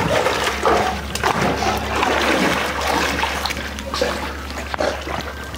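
Labrador retriever swimming in a pool after a ball, the water splashing and sloshing around it as it paddles.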